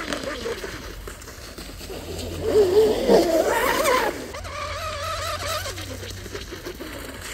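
Electric RC racing catamaran (brushless 1800 kV motor on 6S, two-blade prop) running flat out: a high motor whine wavering in pitch. It is loudest and roughest about two to four seconds in, as it passes close, then falls in pitch and fades as it runs away.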